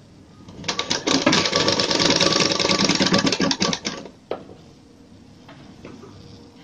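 Sewing machine running in one burst of rapid stitching lasting about three seconds, joining strips of cloth end to end. It stops about four seconds in, and a single click follows.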